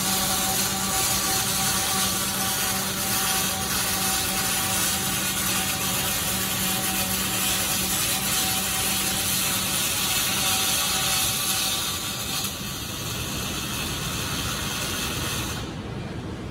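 Robotic arc welding on a steel plate: the welding arc gives a steady hiss and crackle over a machine hum. The sound weakens about three-quarters of the way through and cuts off sharply near the end as the arc stops.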